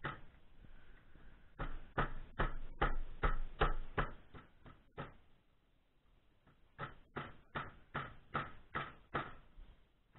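Hammer blows on a steel drift held against an Opel Vectra B front strut mount, a run of sharp metallic knocks about three a second. The knocks pause for about two seconds in the middle, then a second run follows.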